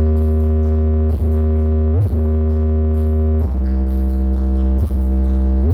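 Electronic music played loud through a large sound-check rig: long held synth notes over a very heavy bass, the pitch shifting every second or so.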